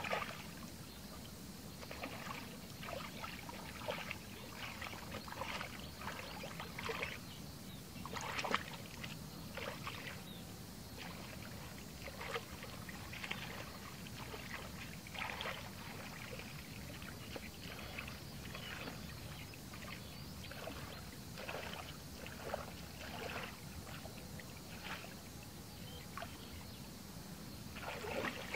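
Shallow muddy water sloshing and splashing in short, irregular bursts as a person wades through it and stirs it by hand.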